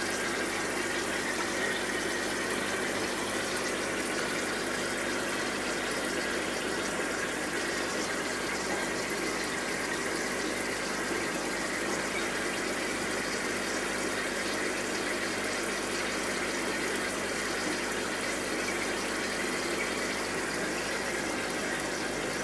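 Steady bubbling and splashing of water from the air-driven sponge filters in several aquarium tanks, with a steady hum underneath, unchanging throughout.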